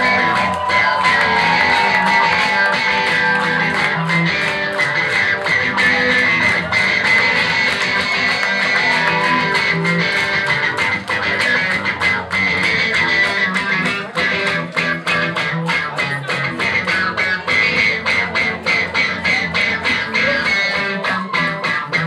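A rock band playing live: electric guitar over bass and drums, with the drum hits coming faster in the second half.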